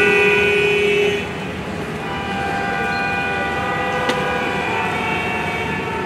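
Pop song intro played over a hall's speakers: long held chords with no beat, one low note ending about a second in, and a single click about four seconds in.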